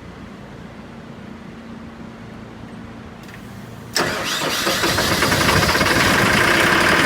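Freshly rebuilt Perkins 1103A three-cylinder diesel on a 43 kVA generator set, on its first start: cranking on the starter for about four seconds, then suddenly catching and running much louder.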